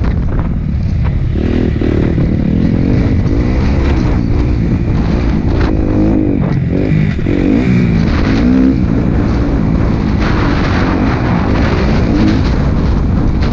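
Motocross bike engine running under load on a dirt track, its pitch rising and falling again and again as the throttle opens and closes, heard from a microphone on the bike.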